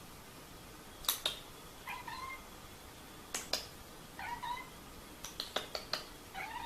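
Domestic cat giving three short meows about two seconds apart, each rising slightly in pitch. Sharp clicks fall between the meows.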